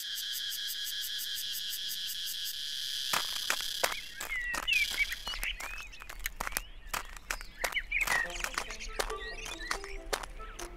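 Crickets chirring steadily as a night ambience. About three seconds in this gives way to birds chirping in quick rising and falling calls, with scattered light clicks.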